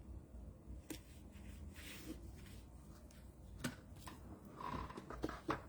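Faint handling of papercrafting supplies: scattered small clicks and light taps, with a brief squeak about three-quarters of the way through.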